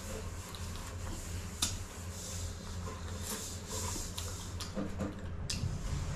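Close-up eating sounds: chewing on a shrimp and peeling its shell by hand, with scattered small clicks and crackles, over a steady low hum.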